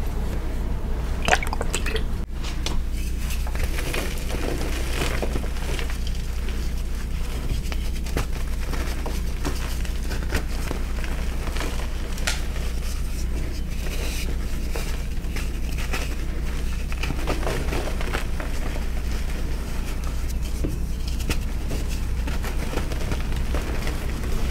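Hands crushing and squeezing reformed gym chalk into powder: soft, irregular crumbling crunches and squishes, with a few sharper cracks in the first few seconds, over a steady low hum.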